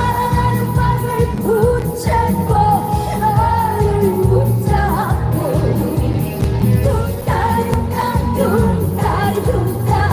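Female trot singer singing live with a band accompaniment and a steady drum beat, her voice wavering with vibrato on held notes, through a concert sound system.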